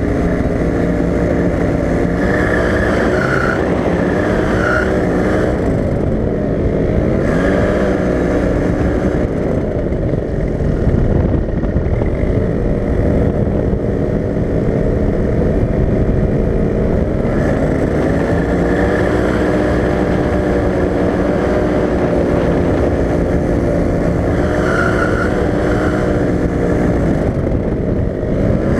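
Paramotor engine and propeller running in flight, heard from the pilot's seat, steady and loud, its pitch dipping and rising again several times.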